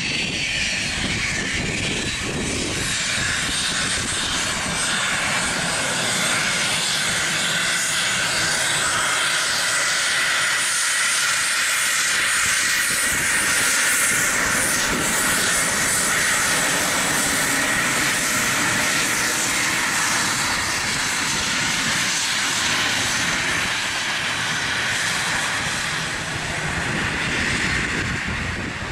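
Boeing C-17A Globemaster III's four Pratt & Whitney F117 turbofans running at takeoff power as the aircraft accelerates down the runway and rotates: a steady, loud jet rush with a high whine, swelling slightly midway.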